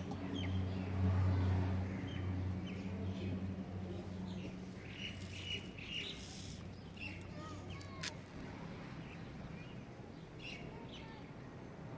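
Birds chirping, short calls scattered throughout, over a low steady hum that fades out about five seconds in; a sharp click near the eight-second mark.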